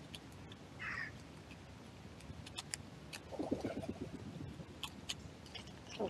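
Grey squirrels foraging in leaf litter: scattered light clicks and rustles as they handle and crack nuts. A brief high bird call comes about a second in, and a low coo comes around the middle.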